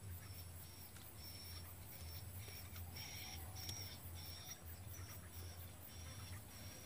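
Faint, high-pitched chirps from a small bird or insect, repeating about twice a second over a low steady hum.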